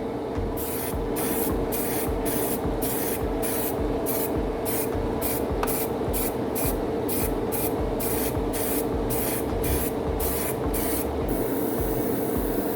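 Paint spray hissing in short regular bursts, almost two a second, over a steady hum; about eleven seconds in the hiss turns continuous.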